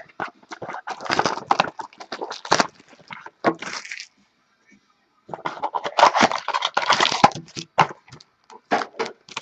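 Packaging crackling and clicking in quick clusters as a trading card box is opened and its cards handled, with a pause of about a second midway.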